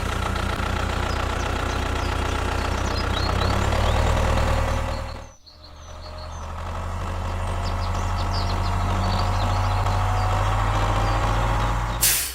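Small engine of a DIY mini tractor running steadily. It drops out briefly about five seconds in and builds back up. Birds chirp faintly.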